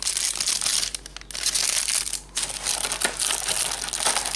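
Plastic packaging crinkling and rustling as it is handled while parts are unpacked from the box, in irregular stretches with a sharp click about three seconds in.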